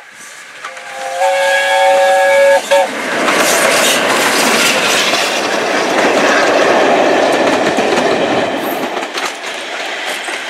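Steam locomotive whistle sounding one blast of about two seconds, several tones at once. Then the train passes close: the coaches rumble by, with wheels clicking over rail joints, easing off near the end.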